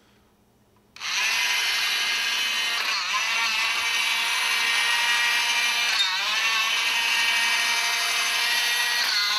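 The motor and gearbox of a 1980s Mattel Masters of the Universe Dragon Walker toy switching on about a second in and running with a steady whir. The whir wavers briefly in pitch about every three seconds as the walker moves along its track.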